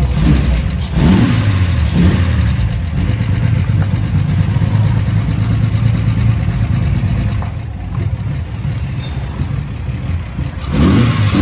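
Chevrolet Omega 4.1's straight-six idling through a new sport exhaust with a turbo-style muffler, blipped about a second in and again at two seconds, then revved up near the end. It sounds fairly muffled.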